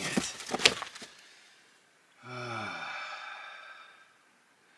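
Stones of a deadfall trap knocking together as the flat slab is lifted, two sharp clacks in the first second. Then a man's long sigh, voiced and falling in pitch, lasting about two seconds.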